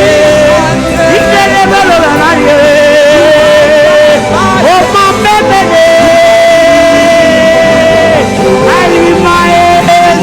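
Live gospel worship music: a voice holds long, wavering notes and slides between pitches over steady instrumental accompaniment.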